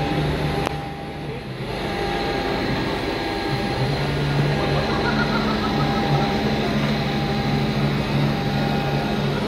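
CNC wood router running with a steady machine hum: low, even tones with a fainter whine above. The sound dips briefly about a second in, then comes back to the same steady level.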